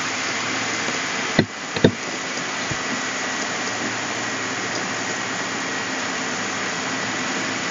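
Steady background hiss with a faint high tone in it, broken by two short clicks about a second and a half and two seconds in.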